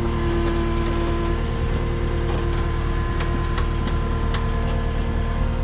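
Skid steer's diesel engine idling steadily, just after starting, with a few faint clicks about three to five seconds in.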